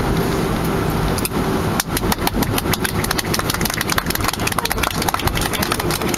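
Cabin noise of a Boeing 737-500 rolling on the ground just after landing: the CFM56-3 engines run with a steady drone and a held hum. From about two seconds in, a rapid, irregular knocking joins it as the wheels roll over the uneven runway or taxiway surface.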